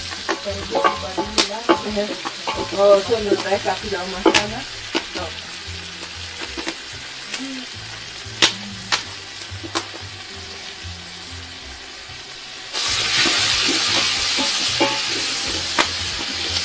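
Food frying in a hot pot while a utensil stirs it, with sharp clicks and scrapes of the utensil against the pot. About 13 seconds in, the sizzle suddenly grows much louder.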